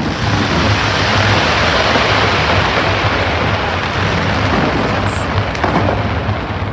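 Fireworks crackling in a dense, unbroken stream of small bursts over a low rumble.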